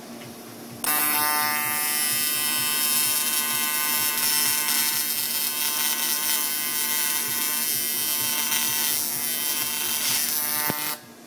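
TIG welding arc buzzing steadily while welding a 3-inch intake hard pipe. It strikes suddenly about a second in and cuts off just before the end.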